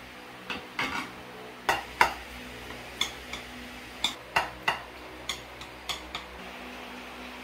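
Metal carving fork and knife clinking and scraping against a glass baking dish while the baked minced-meat dish is cut into portions: a dozen or so sharp, irregular clinks, the loudest about two seconds in.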